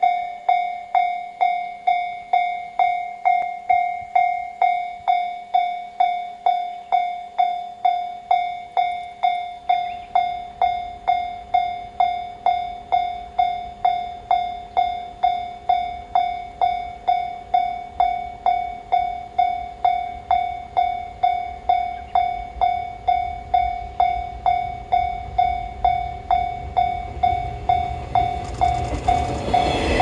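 Japanese level-crossing warning bell ringing in a steady rhythm, about one and a half strikes a second. From about a third of the way in, the rumble of an approaching 485 series electric train rises under it, and it grows loud near the end as the train reaches the crossing.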